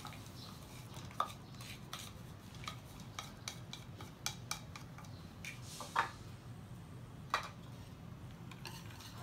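Kitchen utensils clicking and knocking against a stainless steel saucepan as chopped chocolate is scraped in from a plastic bowl with a silicone spatula, then stirred into the milk with a wire whisk. Light irregular taps, with a few sharper knocks about a second in and around six and seven seconds in, over a faint low hum.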